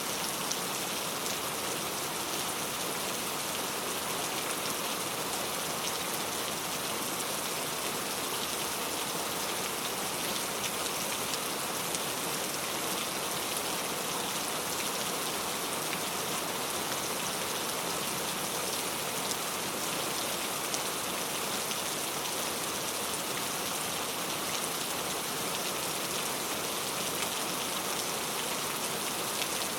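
Heavy rain falling steadily: a dense, even hiss made up of countless small drop hits, with no let-up.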